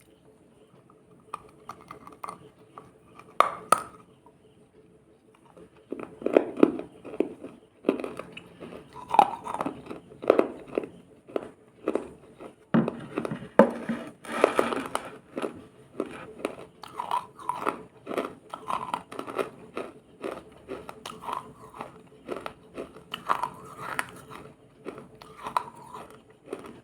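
Close-up biting and chewing of something crunchy and wet. A few light clicks come first, then from about six seconds in a long run of crisp crunches follows, several a second.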